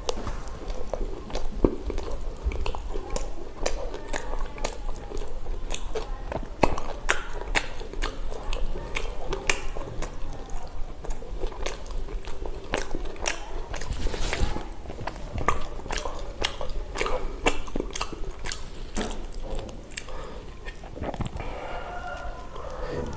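Mouth-close eating of pav bhaji, soft bread rolls with mashed vegetable curry: continuous biting and chewing with many quick, wet mouth clicks and smacks.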